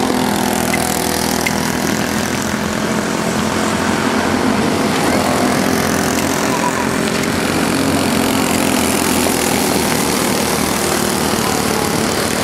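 Several racing go-kart engines running together at speed, a steady layered drone whose pitches shift slightly as the karts throttle around the track.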